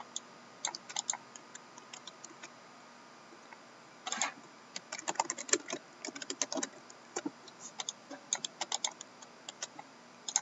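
Computer keyboard typing: irregular runs of short key clicks, with a short pause early on and a longer quiet stretch around the second and third second.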